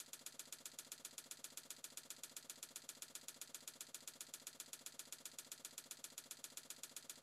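Faint, rapid, evenly spaced clicking, about six clicks a second, that stops abruptly near the end: a slideshow text-animation click effect, typewriter-style, keeping time with words appearing one by one.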